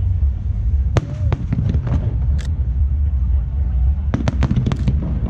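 Aerial fireworks shells bursting: a sharp bang about a second in, a few scattered cracks after it, and a rapid cluster of several bangs near four seconds as a row of shells goes off together, over a steady low rumble.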